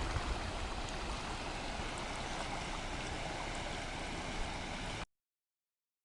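Floodwater rushing, a steady wash of noise that cuts off abruptly about five seconds in.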